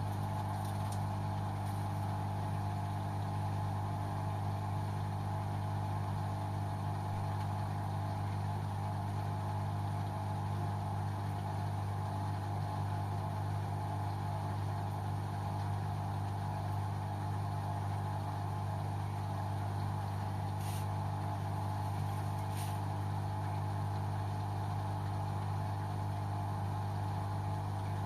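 LG washing machine running on its synthetics 30° programme, a steady, unchanging hum, with two faint ticks late on.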